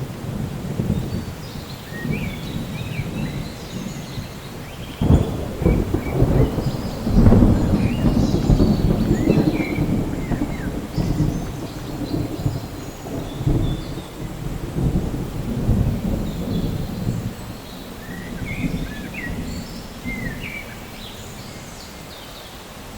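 Thunder in a rainstorm: a sudden crack about five seconds in, then a long low rolling rumble that is loudest a couple of seconds later and slowly dies away, over steady rain.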